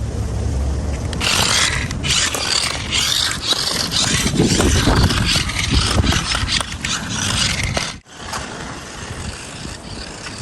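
Amphibious toy RC stunt car driving, its small electric motors and tyres making a continuous scraping, rattling noise. It breaks off abruptly about eight seconds in and resumes more quietly.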